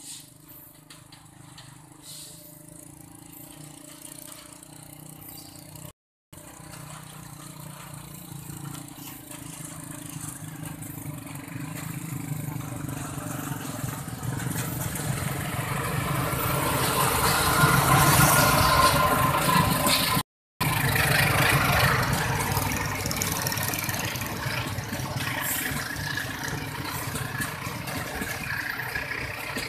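Diesel locomotive hauling a train of stainless-steel passenger coaches, approaching and passing: engine running and wheels rumbling on the rails, growing steadily louder to a peak about two-thirds of the way through, then holding loud as the coaches go by. The sound cuts out to silence twice for a moment.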